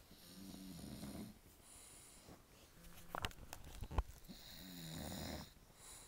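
Sleeping bulldog snoring: two snores about a second long each, one near the start and one about four seconds later. Between them come a few sharp clicks and a knock.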